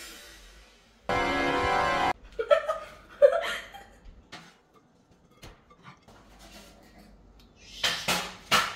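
A loud, buzzy, organ-like tone lasting about a second, starting and stopping abruptly, followed by short bursts of laughter and a few sharp sounds near the end.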